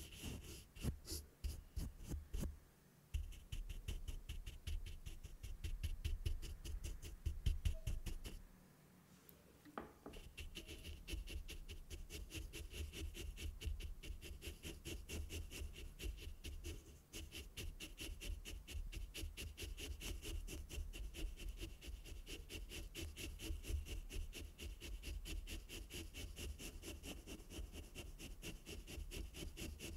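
A fluffy fuzzy cover rubbed and pressed directly over the grille of a Rode NT-USB Mini microphone, giving rapid, close, muffled brushing strokes with a deep rumble. There is a brief pause about nine seconds in, then the rubbing resumes.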